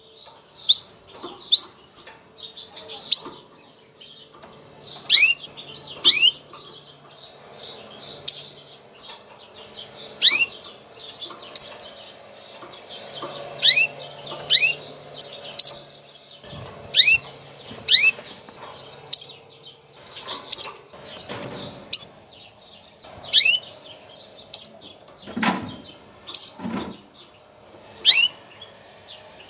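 Female canary's mating call: short chirps that sweep quickly downward in pitch, repeated irregularly about once a second, some louder than others.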